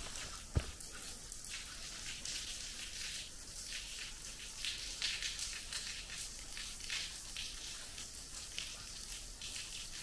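Thin waterfall spilling off a rock overhang into a shallow pool: a steady high hiss with irregular patter and drips like rain. One footstep on dirt about half a second in.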